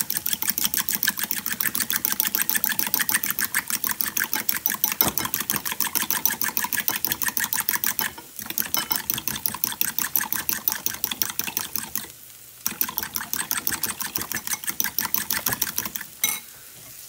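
A metal fork whisking eggs in a ceramic bowl: quick, even clicking strokes against the bowl, about six a second, pausing briefly twice and stopping near the end.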